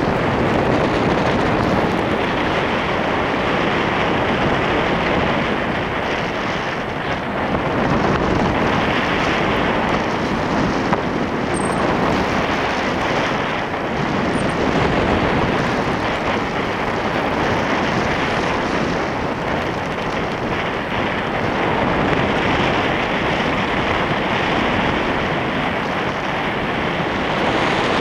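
Airflow buffeting the microphone of a camera carried on a paraglider in flight: a steady rush of wind noise that swells and eases every few seconds.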